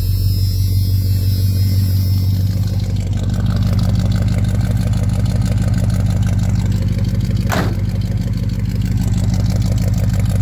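1985 Chevy C10's 350 small-block V8 idling steadily just after starting, running through its new exhaust.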